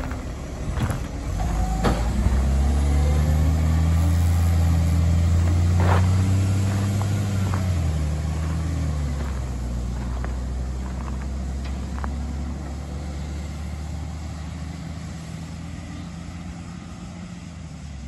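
Garbage truck's diesel engine building up and getting louder about two seconds in, with a few sharp knocks. It then settles lower and slowly fades away.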